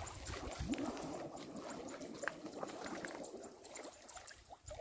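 Shallow water trickling and splashing, a run of small splashes and drips, as a cast net with fish in it is worked in the water.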